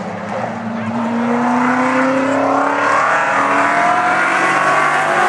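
Street stock race car engine at speed on the oval, its pitch rising as it accelerates about a second in and then holding steady.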